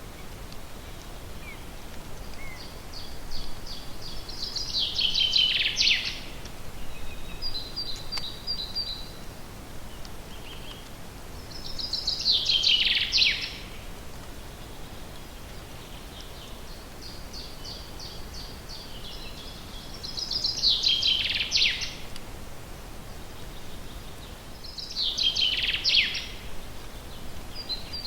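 A forest songbird singing the same phrase four times, roughly every seven or eight seconds. Each phrase is a run of high notes ending in a louder falling flourish. A few short, high call notes come in between, over a steady background hiss.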